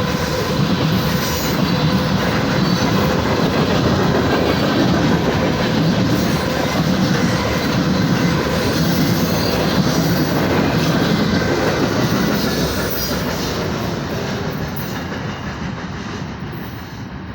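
BNSF manifest freight train rolling past, a steady loud rumble of freight-car wheels on the rails that fades over the last few seconds as the train moves away.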